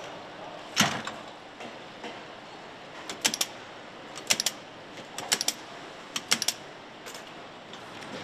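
Sharp metallic clicks and clacks from engine assembly-line machinery, one loud clack about a second in and then groups of two or three clicks roughly once a second, over a steady factory hum.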